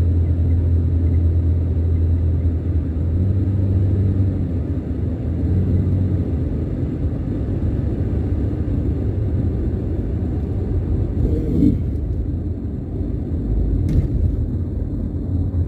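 Car engine and road rumble while driving: a steady low drone whose engine note shifts a few seconds in, with a sharp click near the end.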